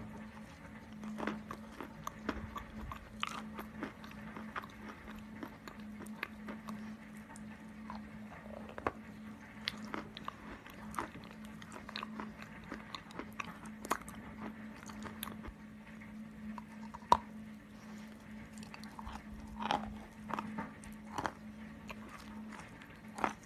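Close-miked crunching of chalk with clay paste, bitten and chewed in irregular sharp crunches, the loudest snap about two-thirds of the way through. A faint steady low hum runs underneath.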